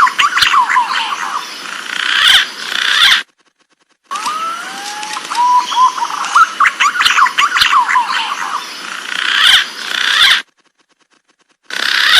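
Recorded green pigeon (punai) calls: whistled, gliding and warbling notes, played as a lure. The recording plays for about three seconds, stops for a second, plays the same passage again for about six seconds, then stops, with a short burst near the end.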